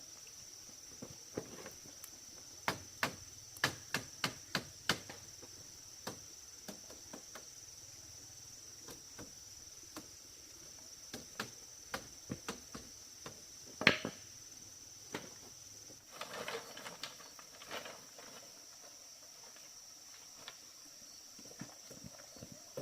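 Steady high-pitched insect chirring, with scattered sharp knocks and clicks over it: a quick run of them a few seconds in, one loud knock about two-thirds of the way through, and a brief rattle just after.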